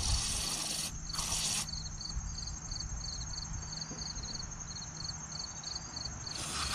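Short hisses of an aerosol can of carburetor/contact cleaner sprayed through its straw into a small-engine carburetor's jets and passages to flush out varnish and blockages: two bursts at the start and another near the end. Crickets chirp steadily in the background, about three chirps a second.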